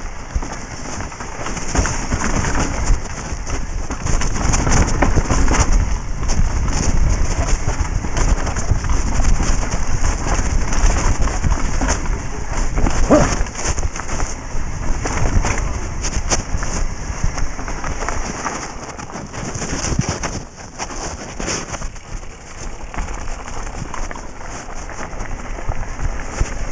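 Wind rushing over a helmet camera's microphone on a fast downhill mountain-bike run, with the tyres crunching over dirt and gravel and the bike rattling over bumps.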